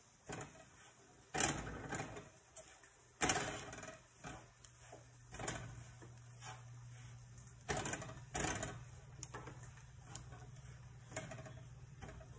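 Metal kitchen tongs clacking and scraping against a pan while tossing sautéed kale, in irregular clatters a second or two apart.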